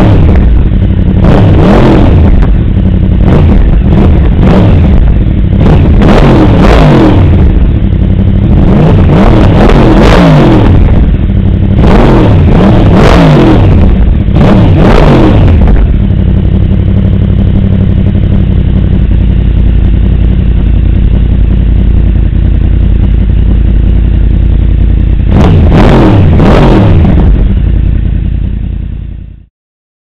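Yamaha YZF-R1's crossplane-crankshaft inline-four through a Yoshimura exhaust, blipped repeatedly in quick rises and falls of revs for about the first half. It then idles steadily for about ten seconds, is blipped twice more, and fades out just before the end.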